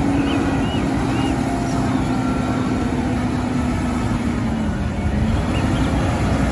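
Concrete mixer truck's diesel engine running as it drives slowly past, a steady engine note over a low rumble that dips briefly about five seconds in.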